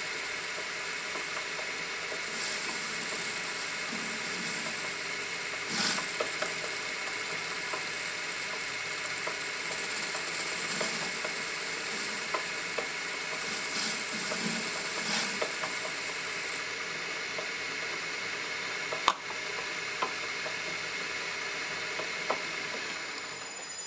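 Metal-turning lathe running with a steady gear whine while a cutter forms a 60-degree valve-seat chamfer on a small high-tensile steel valve, with a few brief rasping bursts as the tool cuts. A sharp click comes late on, and the lathe stops right at the end.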